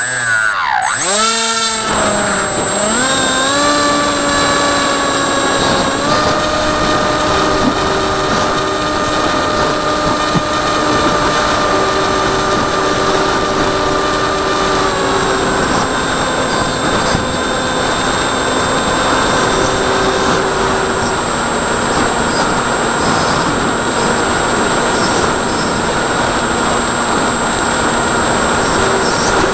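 Electric motor and propeller of an AXN Floater Jet RC foam plane, heard from a camera on its nose: the motor whine swoops up and down in pitch for the first few seconds, then holds a steady high whine at climbing throttle and eases slightly lower about halfway through. Wind rushes over the airframe underneath.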